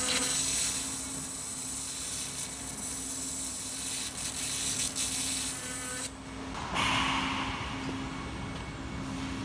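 Precision laser welding machine welding: a loud, steady hiss over a low hum, which cuts off about six seconds in. A softer steady machine hum carries on afterwards.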